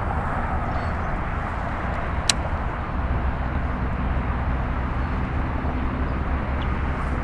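Steady outdoor background noise: a low rumble under an even hiss, with one sharp click about two seconds in.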